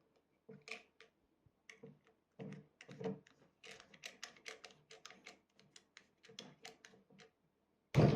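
Irregular run of faint plastic clicks and taps from a ramune bottle's cap and marble opener being pressed and worked, without the marble popping the seal open.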